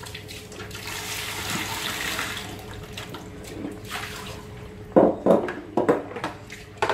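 Braised snakehead fish heads simmering in an aluminium pot on a portable gas stove, the sauce bubbling with a steady hiss. Several short, louder sounds come about five seconds in.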